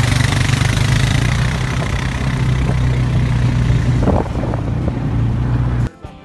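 Four-wheeler ATV engine running steadily, with water splashing as it fords a shallow creek at first. The engine cuts off suddenly near the end, giving way to quieter background music.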